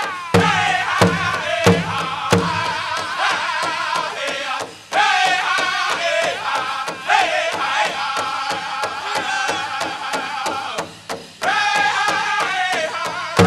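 Powwow drum group playing a prairie chicken dance song: several singers in unison over a fast, steady beat on a large powwow drum, with a few louder beats near the start. The singing breaks off briefly twice, about a third of the way in and near the end.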